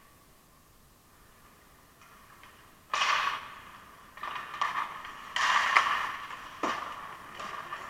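Hockey skate blades scraping and cutting on the ice in rough bursts, starting about three seconds in, with a sharp clack of a stick on the puck about two-thirds of the way through.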